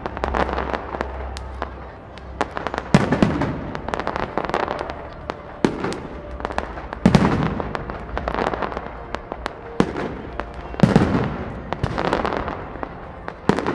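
Large aerial fireworks display: shells bursting with loud sharp bangs roughly every two seconds, with many smaller pops and crackles between them, each big bang echoing.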